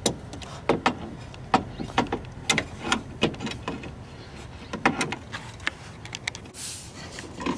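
Irregular small metallic clicks and taps of pliers working on the radiator's transmission cooler line fittings, with a brief scraping hiss near the end.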